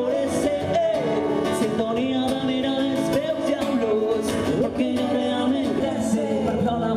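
A song with singing over plucked string instruments and a steady beat.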